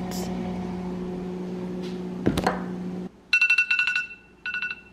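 Smartphone timer alarm going off about three seconds in: rapid high-pitched beeping in two short bursts before it is cut off, signalling that the four-minute waffle timer is up. Before it, a steady low hum and a single thud.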